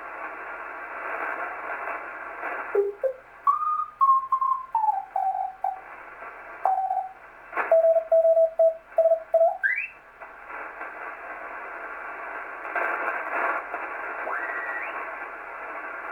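Drake TR-4C transceiver's receiver hissing with band noise through its narrow crystal sideband filter while being tuned across a shortwave ham band. Whistling heterodyne tones slide in pitch as the tuning passes signals, and about eight seconds in a steady tone is keyed on and off for a moment.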